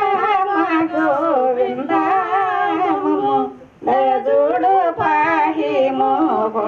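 A person singing a slow melody with wavering, gliding ornamented notes, in two long phrases with a short break for breath a little past halfway.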